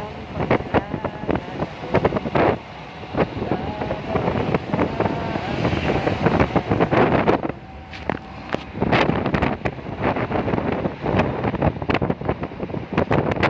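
Wind buffeting the phone's microphone in uneven gusts, over the rumble of a moving vehicle.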